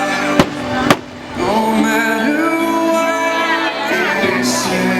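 Fireworks show soundtrack music with singing, broken by two sharp firework bangs about half a second apart, near the start.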